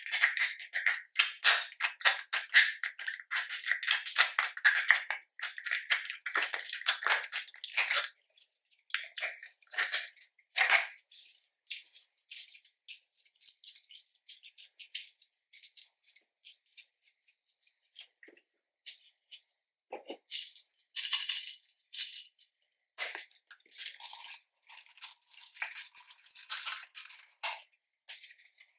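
Slime being squeezed, folded and stretched by hand, giving dense trains of small crackling and popping clicks. They thin out to scattered pops in the middle and grow dense again about two-thirds of the way through.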